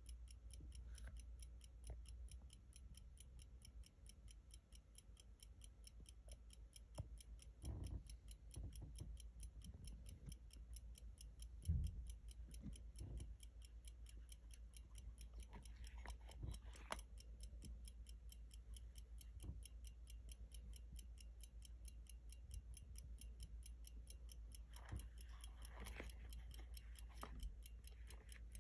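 Running J W Benson 'Bank Watch' pocket watch movement ticking faintly in a rapid, even beat of about five ticks a second. A few thumps and rustles come through now and then, the sharpest about twelve seconds in.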